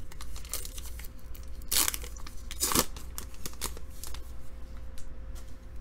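Trading cards being flipped through by hand: card stock sliding and snapping against card stock in quick light ticks, with two louder swishes about two and three seconds in.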